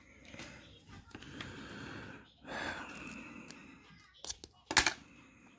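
Scissors snipping at packing tape wrapped around a plastic card holder: a few sharp snips close together near the end, the last one the loudest. A short hiss comes about halfway through.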